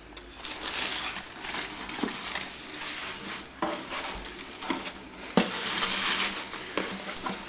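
Crinkling tissue paper and handling noise as a football boot is lifted out of its shoebox, rustling in bursts with several light knocks, the sharpest about five seconds in.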